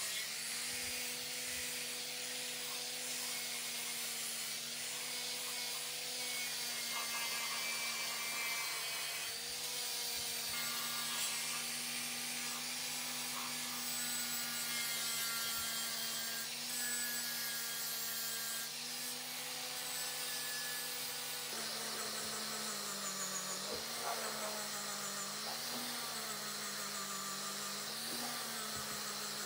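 Electric angle grinder with an abrasive disc stripping old paint and rust from an electric motor's metal housing and end cover: a steady motor whine under a rubbing hiss. The pitch sags briefly as the disc is pressed in, and in the last several seconds it drops lower and wavers up and down under load.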